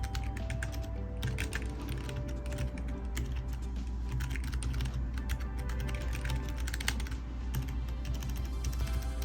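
Typing on a Keychron K1 keyboard with optical switches: a fast, irregular run of key clicks. Background music with steady low bass plays underneath.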